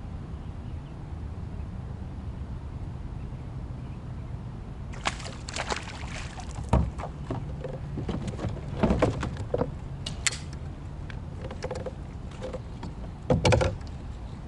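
Steady low rumble on a small fishing boat, with a run of sharp knocks and clatters starting about five seconds in and a loud cluster near the end, like gear knocking against the hull.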